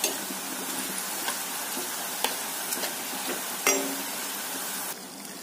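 Triangles of maize-flour nacho dough deep-frying in hot oil, a steady sizzle, while a metal spoon turns them and knocks against the pan a few times. The sizzle drops a little quieter near the end.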